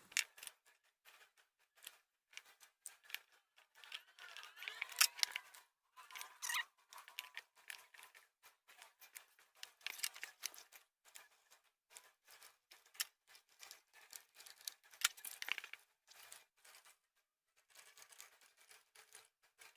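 Motorcycle speedometer parts being handled and fitted back together: a run of light clicks, taps and short scraping rustles with quiet gaps between them.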